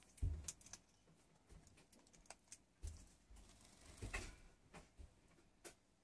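Faint, irregular clicks and light taps, a few of them spread through the stretch with gaps of quiet between.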